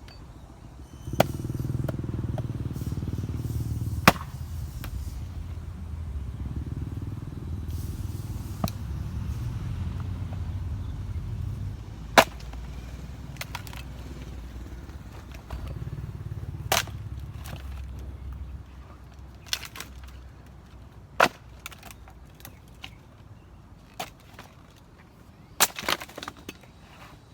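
A 4.5 lb Marathon axe chopping into wet acacia wood: single sharp chops every few seconds, about nine in all. A steady low rumble runs beneath the first two-thirds of the chops.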